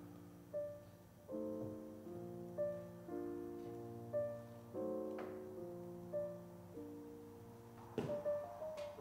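Soft, slow piano background music: sustained chords with single melody notes struck every second or so, each fading away.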